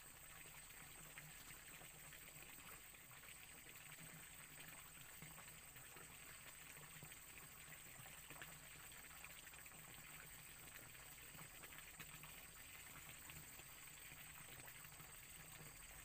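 Faint steady trickle of a small forest stream, with a steady high-pitched drone over it.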